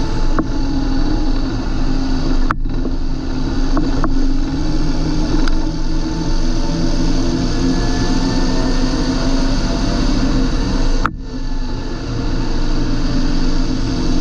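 John Deere 8320 tractor's six-cylinder diesel engine running steadily, with two brief sharp breaks in the sound, about two and a half seconds in and again near eleven seconds.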